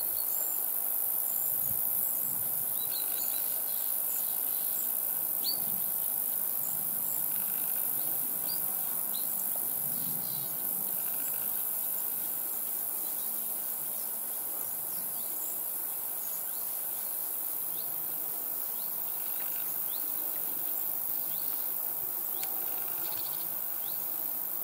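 Insects chirring in a steady high-pitched drone, with scattered short bird chirps over it.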